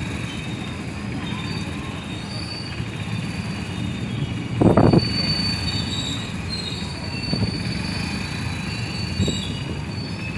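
Freight train of covered boxcar wagons rolling past close by: a steady low rumble of wheels on rail with thin, high wheel squeals over it. About halfway through there is one loud knock, and two fainter knocks follow later.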